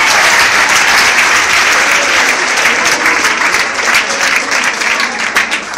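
Audience applauding: dense, steady clapping that thins into scattered separate claps near the end.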